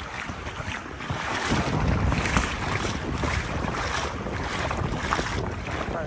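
Wind buffeting the microphone, a rumbling rush that grows stronger about a second and a half in, over water lapping and splashing close by.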